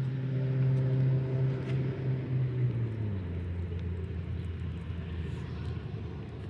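A motor vehicle engine running steadily, its pitch dropping in two steps as it slows.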